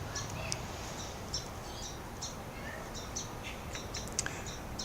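Birds chirping: short, high chirps scattered through, over a steady background hiss.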